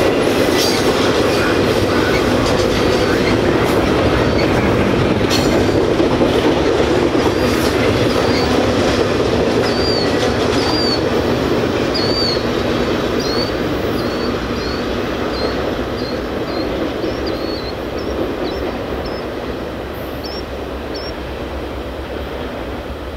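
Double-stack intermodal container well cars rolling past on the rails with a steady rumble and clatter of wheels. The sound fades as the end of the train moves away.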